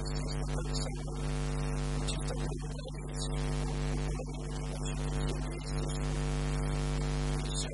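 Steady electrical mains hum with a stack of buzzing overtones: interference on the recording that masks everything else.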